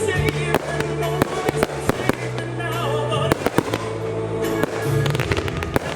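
A fireworks finale: rapid, dense bangs and crackles of aerial shells going off several times a second, over music with sustained bass notes.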